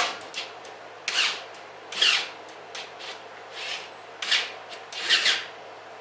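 Sheet-metal stovepipe scraping and grating as it is worked loose at a joint: about five short rasping strokes, each sweeping up in pitch, with a few small metal clicks between them.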